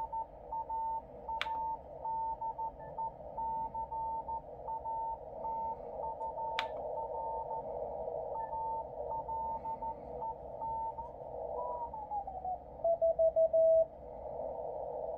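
Morse code (CW) from a 10-metre amateur beacon heard through a Yaesu FTDX10 transceiver in CW mode: a keyed tone of dots and dashes over band hiss squeezed into a narrow filter. Two sharp clicks come about a second and a half and six and a half seconds in. Near the end the tone slides down in pitch as the receiver is retuned, and a louder, lower tone keys rapidly for about a second.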